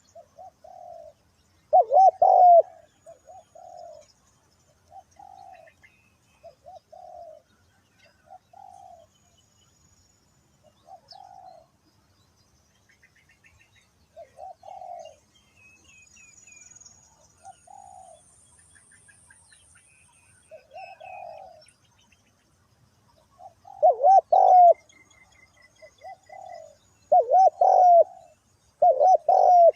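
Spotted doves cooing: a run of short, low coo notes, loud and close about two seconds in and again in bursts near the end, with softer coos spaced between them. Faint high chirps of small birds in the background.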